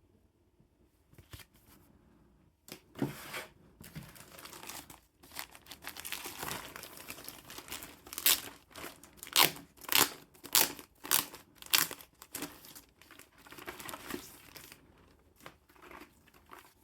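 Packaging being handled: irregular crinkling and rustling, with a run of sharper, louder crackles near the middle.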